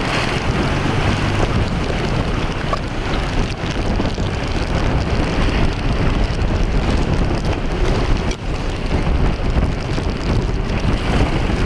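Wind buffeting the microphone, a steady loud rushing with a heavy low rumble, over choppy open water.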